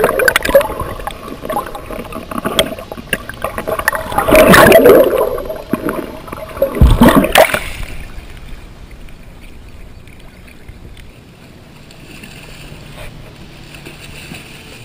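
Water sloshing and gurgling around a GoPro held at and just below the surface, with three loud splashing surges in the first half, then a quieter, steady wash of water from about halfway through.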